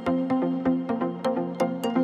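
Electronic background music: a quick melody of short, sharply struck notes over a steady beat, with no speech.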